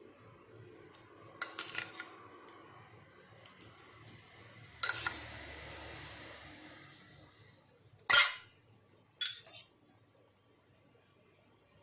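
Steel spoon scraping and clinking against a stainless steel bowl and mixer-grinder jar as mango cubes are scooped across. A few light clinks are followed by a strike about halfway through that rings on for a couple of seconds, then two sharp knocks, the first the loudest.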